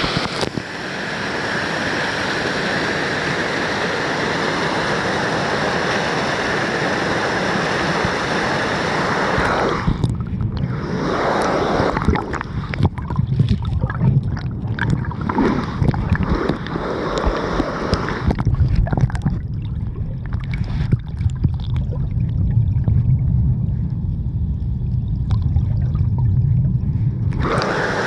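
Mountain valley stream water rushing steadily. About ten seconds in, the sound turns muffled and deep, with many small crackles and bubbling, as the microphone goes under the water. Near the end it comes back up into the open rush.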